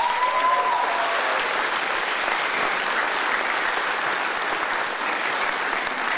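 Audience applauding steadily, with one brief high whoop over it near the start.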